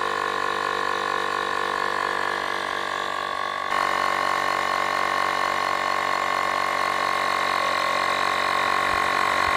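Portable electric tyre inflator, its small compressor running steadily with a whining note, getting a little louder just under four seconds in.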